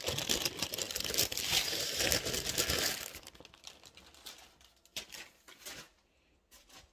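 A sheet of white packaging crinkling as it is handled right against the microphone: dense crackling for about three seconds, then a few scattered rustles and clicks that die away near the end.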